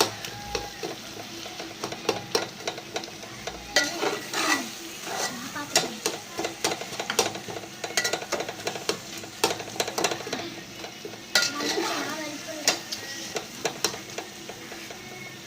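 A spoon stirring and scraping a pan of egg-curry gravy base as it sizzles and fries, with many irregular clicks of the spoon against the pan. It is stirred every so often to keep it from catching on the bottom.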